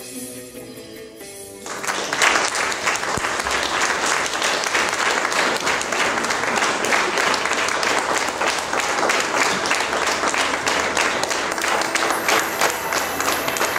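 Soft plucked-guitar music dies away, and about two seconds in an audience breaks into applause, many hands clapping steadily.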